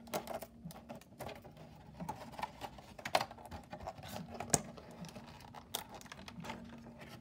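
Thin clear plastic blister packaging being handled: irregular crackling and sharp clicks as small parts are worked out of the tray. A faint steady hum runs underneath.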